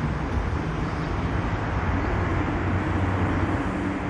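Steady hum of a vehicle engine with road noise, even and unchanging throughout.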